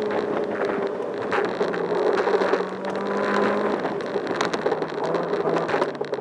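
Race car engine running at a steady, high-held pitch during an autocross run on wet pavement, with a hiss of water under it. The engine note dips slightly about four seconds in and again near the end.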